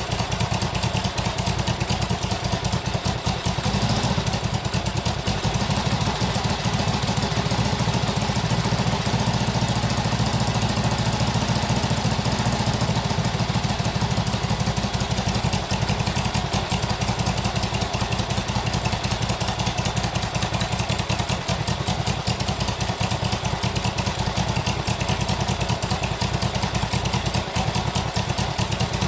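1967 Honda CB77 Super Hawk's 305 cc parallel-twin four-stroke engine running steadily at idle after its first start in years; the owner finds it running very rich.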